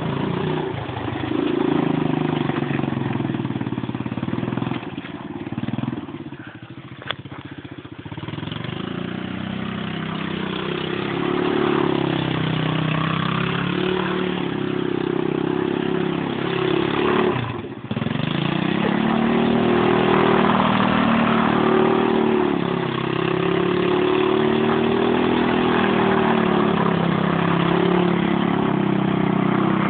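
ATV engine running and revving, its pitch rising and falling with the throttle. A little past the middle it drops off sharply for a moment, then picks up again.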